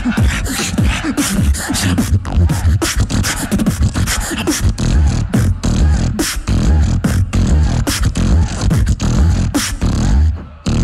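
Beatboxer performing into a handheld microphone, amplified: deep booming bass kicks under sharp snare and hi-hat clicks in a fast, dense rhythm.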